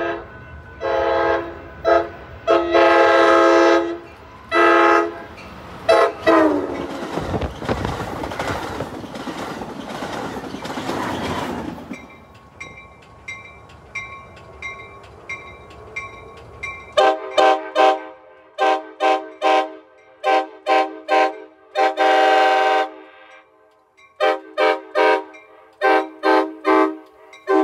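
Amtrak Pacific Surfliner cab car horns. First, several chord blasts with a long one about three seconds in; the horn's pitch drops as the train goes by, and a rush of wheel and wind noise follows. After a cut, another cab car's horn sounds many short toots in quick succession, with one longer blast partway through.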